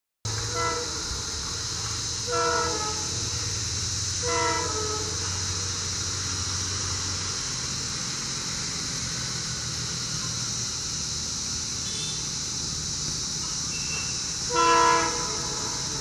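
Horn of an Indian Railways WDP4 diesel locomotive, several tones sounding at once, honked four times: three short honks in the first five seconds, then the loudest one near the end.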